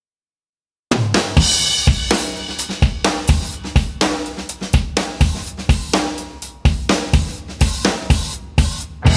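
Silence for about a second, then background music starts: a full drum kit with snare, bass drum and cymbals playing a steady beat.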